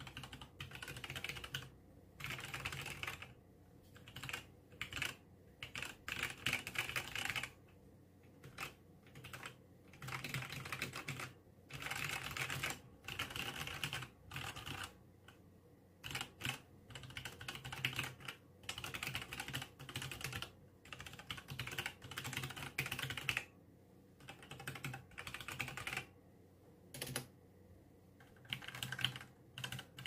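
Typing on a Logitech G Pro mechanical keyboard with Romer-G tactile switches: rapid key clicks in bursts of a second or two, separated by short pauses. The owner hears a ping from the keyboard on every keystroke.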